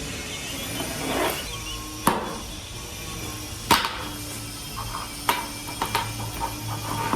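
Three loud sharp knocks about a second and a half apart, then a run of lighter clicks and taps, over a steady low hum.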